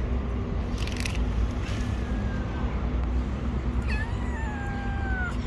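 Stray kittens meowing: a faint call about two seconds in, then a longer, clearer meow near the end that starts with a short high note and slides down in pitch. A steady low rumble runs underneath.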